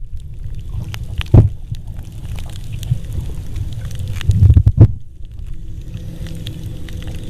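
Underwater sound picked up by a submerged camera: a steady low rumble of moving water with scattered faint crackles, and louder thumps about a second and a half in and again a couple of times around four and a half seconds in.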